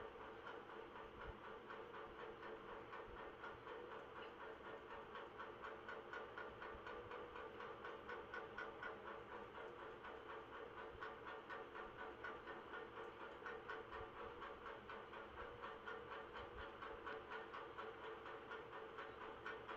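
Tailor's scissors cutting through cotton lining cloth in quick, regular snips, faint over a steady background hum.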